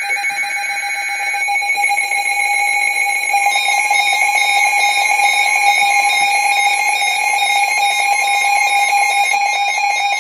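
Emergency Alert System tones for a severe thunderstorm warning. The last of the chirping digital header bursts ends about a second and a half in, and then the loud, steady two-tone attention signal sounds.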